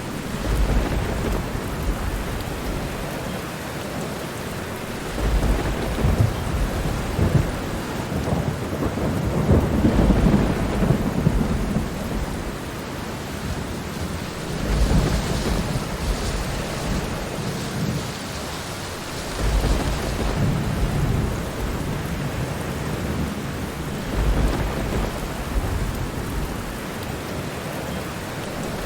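Steady heavy rain with repeated low rolls of thunder, swelling and fading about every four to five seconds.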